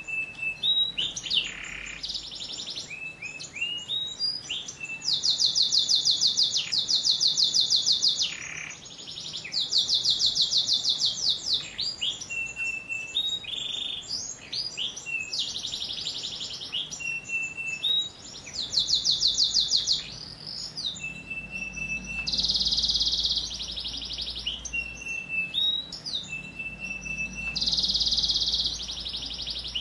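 Male domestic canary singing a long, varied song without pause: fast rattling trills alternate with short, level, high whistled notes and denser buzzy passages.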